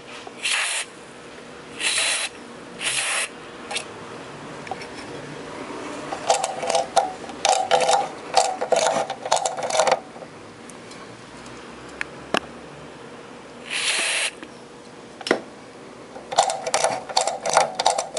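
Metal scraping at the corroded contacts of an amplifier's input jack, in quick rasping strokes that come in two runs, with a few sharp clicks and four short hissing bursts between them. The jack's ground contact is crusted with oxidation and mud.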